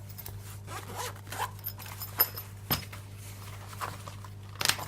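Zip of a lock pick case being pulled open, a scratchy rasp, with a few sharp clicks of handling, the loudest near the end.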